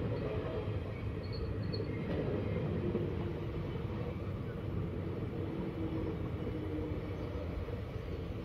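Indian Railways sleeper coaches rolling past close by: a steady rumble of wheels on the rails.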